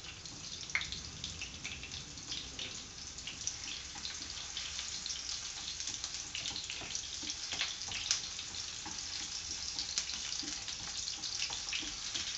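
Chopped ginger and garlic sizzling in hot cooking oil in a frying pan, a steady hiss with scattered crackles and pops as the pieces are sautéed.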